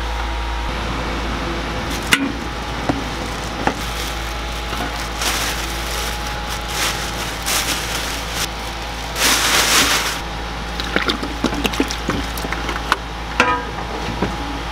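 Ingredients being handled and tipped into a steel cooking tray: scattered knocks and rustles, with a brief louder rush about nine seconds in, over a steady low hum. Liquid is poured onto the tray near the end.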